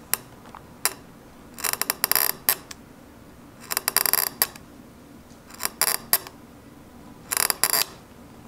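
Steel dental pick scraping along a steel scale on an aluminium beam, scribing a load line: four short bouts of scratchy scraping, each under a second and about two seconds apart, with a few single sharp clicks near the start.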